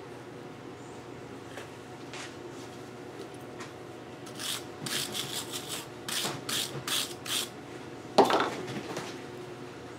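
About eight quick scraping strokes of a hand tool on metal tubing, like filing or wire-brushing, followed a moment later by a single loud metallic clunk of something set down hard on the bench.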